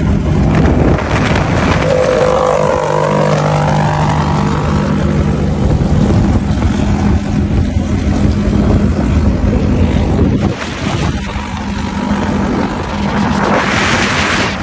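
Off-road race motorcycle's engine running as the bike is ridden along a paved road, with wind rushing over the microphone. About two to four seconds in the engine note falls and then rises again.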